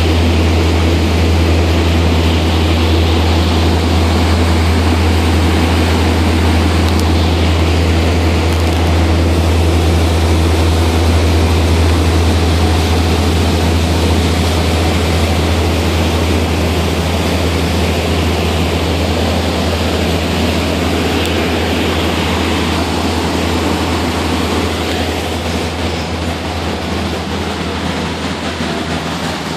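A motorboat's engine running steadily under way, a strong low hum with water and wind noise over it. It eases off a little near the end.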